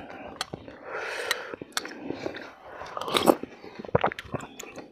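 Close-miked eating: two people chewing and slurping spoonfuls of beef intestine soup, with irregular sharp clicks from spoons on bowls and mouths all through.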